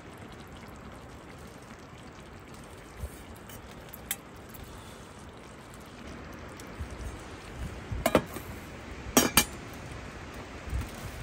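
A few light clinks of camp cookware over a low steady hiss, with two louder ringing clinks near the end.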